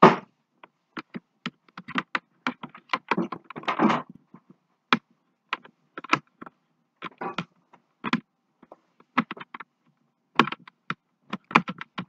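Irregular clicks, knocks and clatter of hard plastic parts being handled, as a cordless handheld vacuum and its charging plug are fumbled with; a sharp knock opens it and a busier clatter comes about three to four seconds in.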